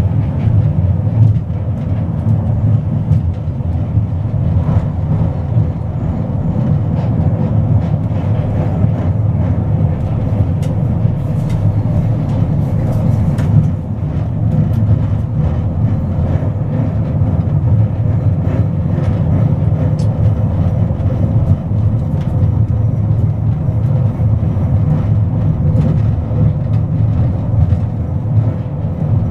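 Budapest Castle Hill funicular car running along its rail track: a steady low rumble with a few faint clicks.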